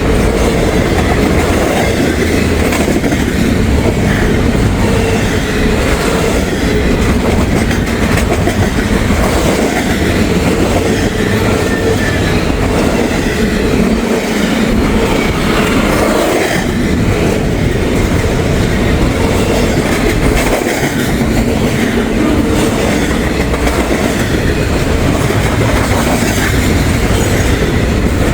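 Freight train passing close by at speed: a loud, steady rumble and rattle of cars and wheels on the rails that doesn't let up.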